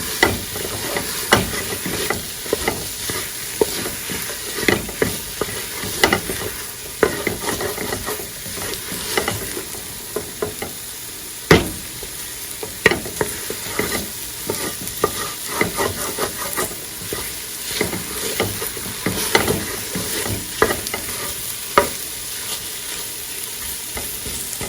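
Aromatic vegetables sizzling as they sauté in a pot, with a spoon stirring them and clinking against the pot at irregular moments; one sharper knock comes about halfway through.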